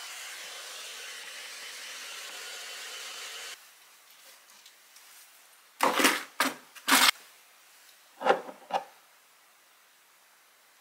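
A steady hiss that cuts off suddenly about three and a half seconds in, then quick spritzes from a perfume spray bottle: three in close succession, then two more.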